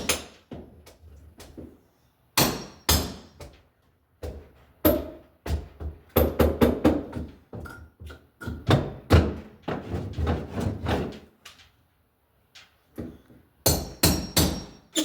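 Hammering on wood: irregular hammer blows, some single and some in quick runs, in several short bursts with pauses between.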